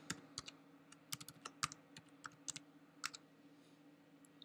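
Keystrokes on a computer keyboard: a quick, uneven run of about a dozen faint clicks as a password is typed, thinning out about three seconds in, over a faint steady hum.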